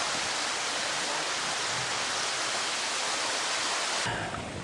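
Steady, even rushing hiss that cuts off abruptly about four seconds in, giving way to a quieter outdoor background.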